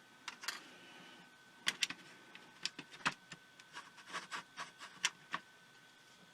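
An irregular run of light clicks and taps, about fifteen in five seconds, from small parts and tools being handled on a workbench.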